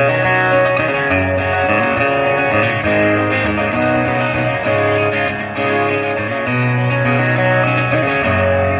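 Guitar strummed steadily, chords changing about once a second: a musician's sound check.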